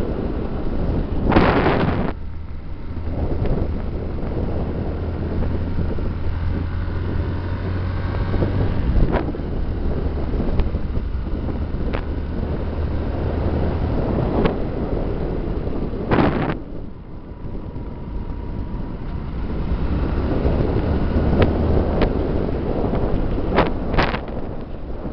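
Wind rushing over the microphone of a moving motorcycle, with the engine's steady low drone underneath. Several brief, louder blasts of wind buffeting come through.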